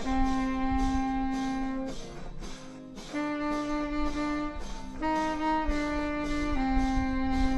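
Selmer Mark VI saxophone playing a slow melody of long held notes, with a short break near the middle.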